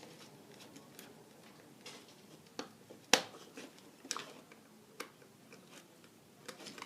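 A handful of separate sharp clicks and taps from tools and wires being handled while switch wiring is connected, the loudest about halfway through.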